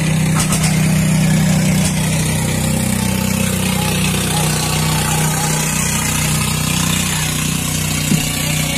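Outrigger boat's engine running with a steady low drone, heard from on board.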